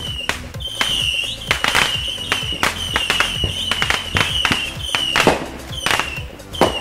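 Fireworks going off in quick succession: about a dozen sharp cracks, each with a short, slightly falling high whistle, over steady background music.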